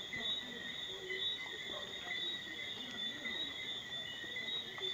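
Night insect chorus: a steady, high, pulsing trill in two pitches, with a faint, wavering, low murmur underneath.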